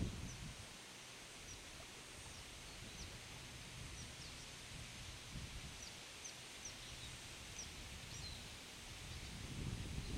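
Faint steady hiss of riverside ambience with scattered short, high chirps of small birds.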